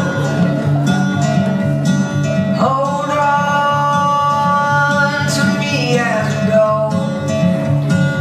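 Country-style song: a singer holds one long note over guitar and a steady bass beat, the note sliding down near the end.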